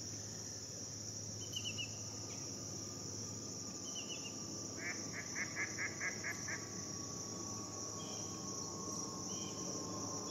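Steady outdoor chorus of crickets and other insects, a continuous high trill. A few short chirps cut across it, and a run of about eight quick notes comes a little past the middle.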